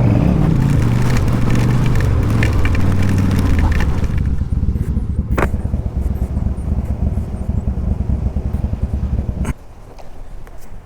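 Yamaha V-Star 1100's air-cooled V-twin engine running steadily, with a single sharp click about five seconds in; the engine sound drops away sharply near the end.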